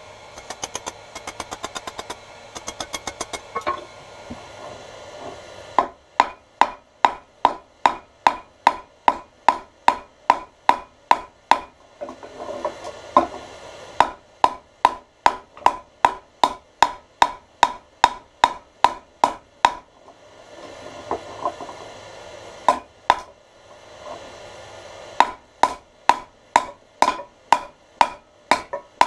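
Blacksmith's hammer striking hot iron on an anvil while forging bolt tongs. The blows come in steady runs of about two to three a second, separated by short pauses. There are lighter, quicker taps in the first few seconds.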